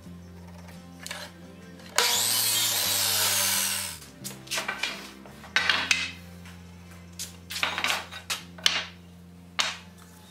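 A power saw cuts through a hardwood board for about two seconds, then a run of sharp wooden knocks and clatters as boards are handled on the saw table. Background music plays underneath.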